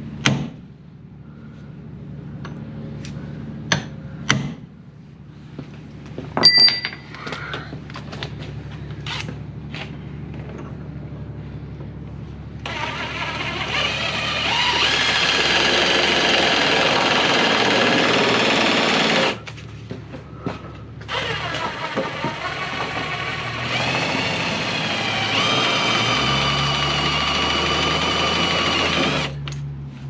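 A hammer striking a steel punch to drive out a Jeep Cherokee XJ door hinge pin: a sharp metal strike at the start, then a few more over the next several seconds, one with a ringing note. After that a handheld power tool runs on the hinge in two long spells, about six and eight seconds, with a short break between them.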